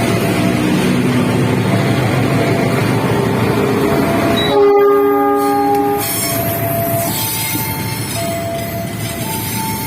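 A train running through a level crossing with a steady rail rumble, while the crossing's warning alarm keeps alternating between two tones. About halfway through, a train horn gives one chord-like blast of about a second and a half.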